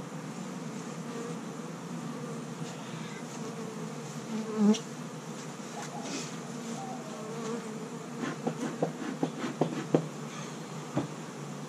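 Honey bees buzzing around an opened hive: a steady hum, with a brief louder swell whose pitch dips and rises a little before halfway. Near the end comes a quick run of sharp clicks and knocks.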